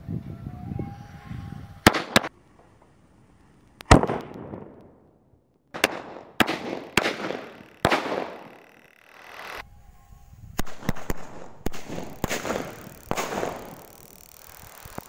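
Skyshot firework rockets firing from a homemade multi-barrel launcher: about ten sharp cracks, each trailed by a fading hiss. The loudest comes about four seconds in, and the others follow in quick runs.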